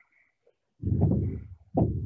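Hand-held propane torch flame giving a low rumble in two short bursts, the first about a second in and the second just before the end, each starting abruptly. The torch is heating an oar blade's cone and face to loosen the glue.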